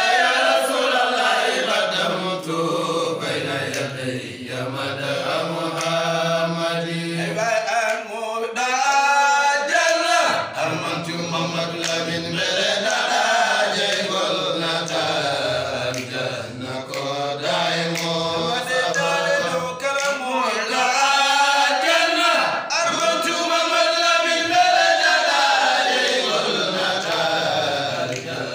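Male voices chanting an unaccompanied devotional song in long phrases that rise and fall, one leading voice with others joining.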